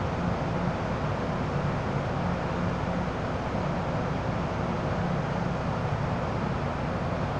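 Steady hum and rush inside a stationary MTR M-Train car standing at a platform: the train's ventilation and electrical equipment running at rest, with a low, even drone.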